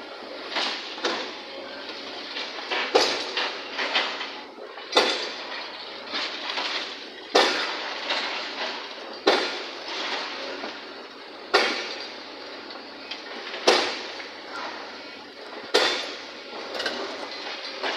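Tracked excavator working demolition rubble: a loud metallic clank about every two seconds, with smaller clanks and the clatter of debris in between.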